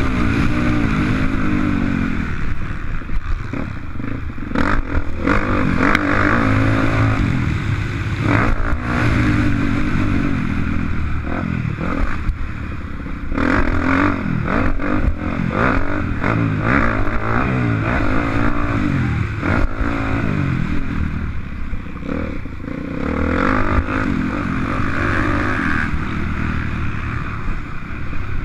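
Motocross bike engine revving up and falling off again and again as it is ridden hard through the gears, with scattered knocks and clatter.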